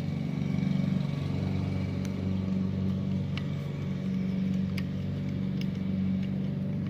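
A motor running steadily with a low hum, with a few faint light clicks from the metal speedometer being handled.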